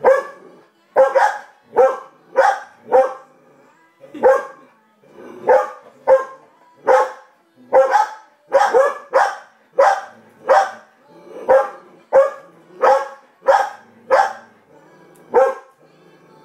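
Dog barking repeatedly at the TV: a long run of single loud barks, about one to two a second, that stops near the end. A TV cartoon soundtrack plays faintly underneath.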